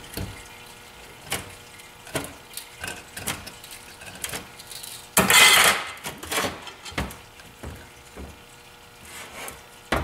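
Metal parts of a cut-open torque converter being handled on a metal workbench: scattered clinks and knocks, with one loud scrape lasting under a second about five seconds in.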